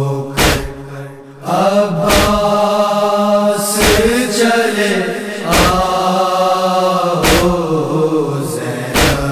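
A Shia noha, a Muharram lament, chanted unaccompanied in long wavering held notes, with a short pause about a second in. A heavy matam beat of chest-beating strikes keeps time about every 1.7 seconds.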